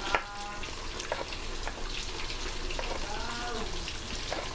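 Pork pieces frying in hot oil in a pan: a steady sizzle and crackle with scattered small pops.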